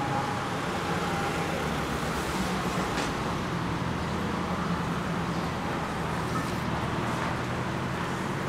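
Steady street ambience: road traffic running with a low, steady engine hum.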